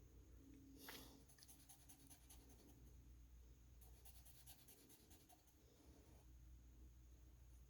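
Faint scratching of a black marker colouring in on paper, in quick runs of back-and-forth strokes, about a second in and again around the middle.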